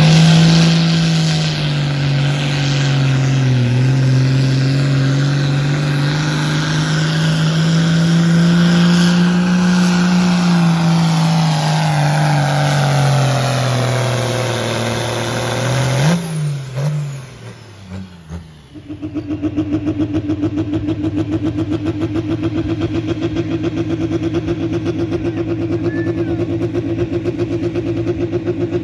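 Pulling tractor's engine running flat out under load as it drags the weight sled, its pitch sagging and rising, then cutting off sharply about sixteen seconds in. From about nineteen seconds another pulling vehicle's engine idles steadily with a fast, even pulse.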